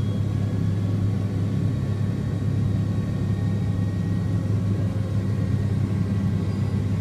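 Steady low rumble with a faint high whine inside the cabin of a McDonnell Douglas MD-80: its rear-mounted Pratt & Whitney JT8D jet engines running at idle after startup.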